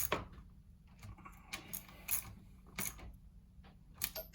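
Scattered metal clicks and taps of hand tools working the clutch-cover bolts as they are snugged up, with a few sharper clicks near the end.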